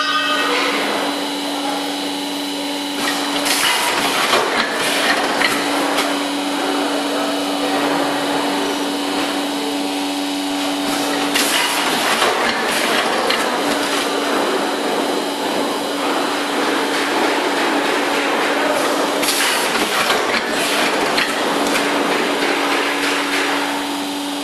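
Vertical form-fill-seal packaging machine running, with repeated sharp clacks as its sealing jaws close and cut off filled bags, over a steady mechanical hum and hiss. A steady tone in the hum drops out for a while at times.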